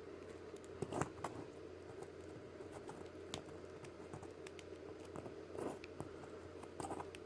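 Light, scattered clicks and taps of plastic action-figure parts being handled, the sharpest about a second in, over a faint steady hum.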